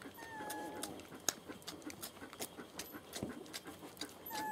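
Young German Shepherd puppy whining: a thin, slightly falling whine of under a second near the start and again near the end, among soft clicks and scuffles of puppies mouthing at a hand.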